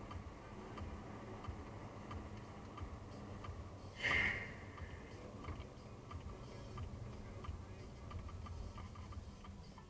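Car driving slowly on a snow-covered road, heard from inside the cabin: a steady low rumble, with one brief, loud, higher-pitched noise about four seconds in.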